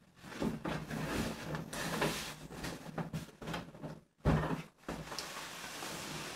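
Large cardboard toy box being handled and turned on a tabletop: irregular scraping and rubbing of card, with light knocks.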